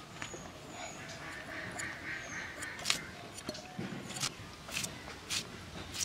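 Vegetables being cut on a bonti, a fixed curved iron blade: a handful of sharp cutting clicks in the second half. Nasal bird calls sound in the background about a second in.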